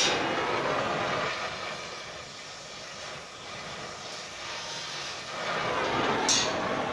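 Oxy-fuel cutting torch flame running with a steady hiss as it heats a quarter-inch round steel bar for bending. It drops quieter for a few seconds in the middle and comes back up. There is a sharp click at the start and another near the end.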